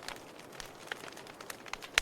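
Wood fire in a fireplace crackling: irregular pops and snaps over a soft hiss, with a sharp, louder pop near the end.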